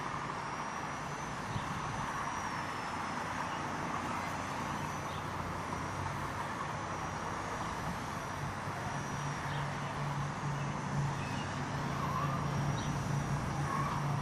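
Walkera 4#3B micro RC helicopter in flight, its brushless motor and rotor giving a steady high whine whose pitch wavers slightly, over a constant hiss. A lower hum strengthens in the second half.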